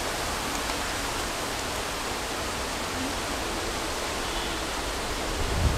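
A steady, even hiss with a low rumble underneath: outdoor background noise.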